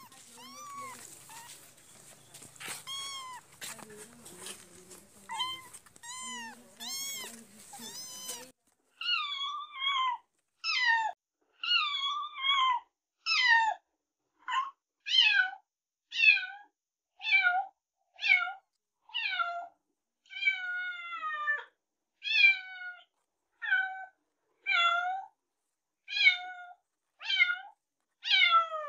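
Kittens mewing over and over in high-pitched calls, many falling in pitch. The first few calls are scattered over some rustling and clicks; after that comes a steady run of about one mew a second.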